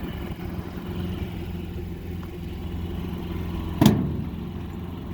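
Predator portable generator's engine running steadily, with a single sharp knock a little under four seconds in.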